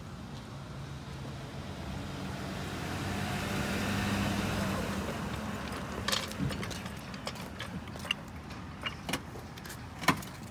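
A car engine running, with a noise that swells to a peak about four seconds in and fades away, like a car going by, followed by scattered clicks and knocks.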